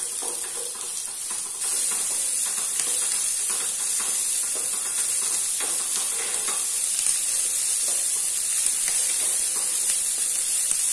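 Sliced onions, green chillies, ginger and garlic sizzling in hot oil in a pan, stirred with a wooden spatula that scrapes against the pan. The sizzle gets a little louder about one and a half seconds in.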